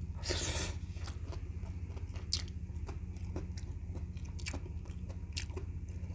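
Close-up mouth sounds of a person eating boiled goat feet by hand: biting and chewing the meat and cartilage, with a short noisy burst soon after the start and a few sharp clicks of lips and teeth. A steady low hum runs underneath.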